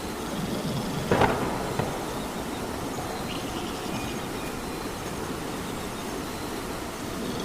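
Steady rain falling, with a single sharp crack about a second in and a smaller tick just after it.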